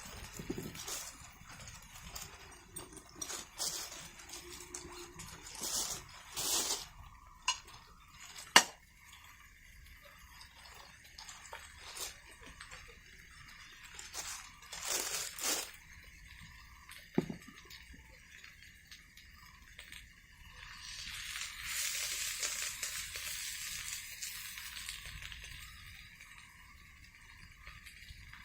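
Cooking utensils and dishes clinking and knocking at irregular intervals, with one sharp knock about nine seconds in. A stretch of steady hiss rises and fades in the second half.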